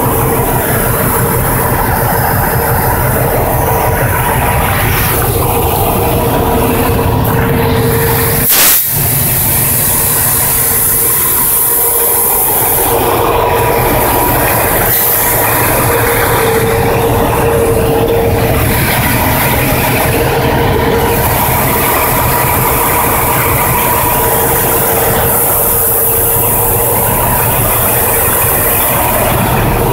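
Heavy truck engine running steadily, with a steady tone over the rumble; one sharp knock about nine seconds in.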